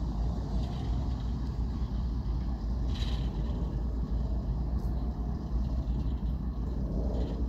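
BR class 08 diesel shunter's English Electric six-cylinder engine running with a steady low rumble as the locomotive moves slowly away along the track. A short higher-pitched sound comes about three seconds in.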